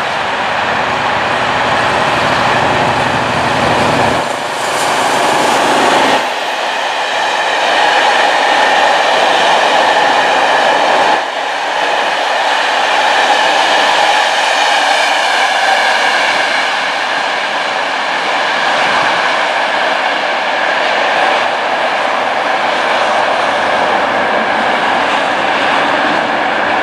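Train passing at close range: a steady rush of wheels on rail, with a faint whine above it.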